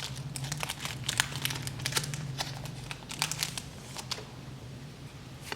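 Crinkling of a foil Pokémon booster-pack wrapper being handled and opened: a dense run of small crackles that thins out after about three seconds, over a low steady hum.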